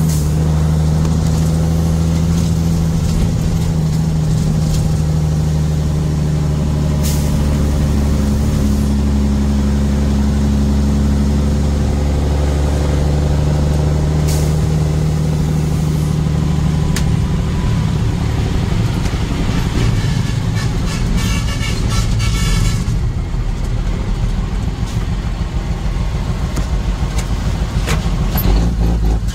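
A road vehicle driving along. A steady engine drone holds for roughly the first half, then gives way to road noise, with a spell of rattling about three quarters of the way through.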